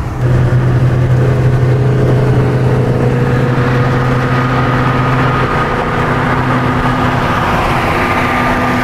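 Shelby GT500's supercharged V8 heard from inside the cabin, cruising at a steady highway speed with a low, even drone. Road and wind noise build from a few seconds in.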